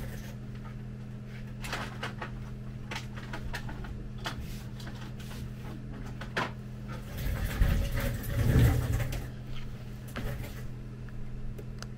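Scattered small clicks and knocks of parts and tools being handled, with a few louder low thumps about eight seconds in, over a steady low electrical hum.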